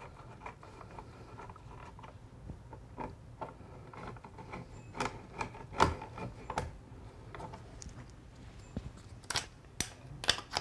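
Light, irregular clicks and scrapes of a duplex receptacle being straightened in its wall box with a screwdriver, with louder clicks about halfway through and near the end.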